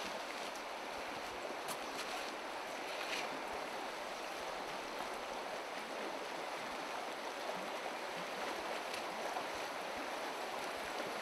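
Shallow stream running over stones in a riffle, a steady rush of water, with a few faint clicks in the first few seconds.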